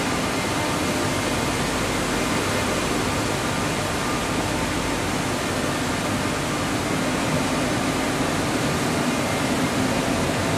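Spinning mill machinery running: the steady, even noise of rows of spinning frames and carding machines on the mill floor, with a faint low hum.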